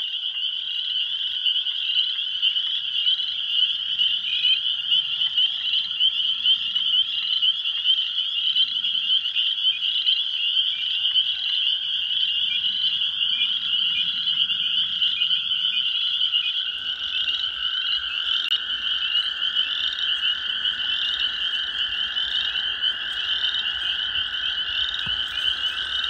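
Dense chorus of spring peepers, a constant wall of high peeping notes, close enough to be almost deafening. Under it runs the long, steady trilling of toads, which grows stronger about two-thirds of the way through.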